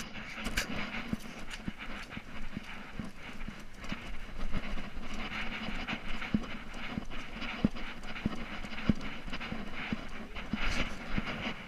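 Dog panting in quick rhythmic breaths while it trots, picked up close by a camera on its collar, with small knocks and rattles of the camera against the collar.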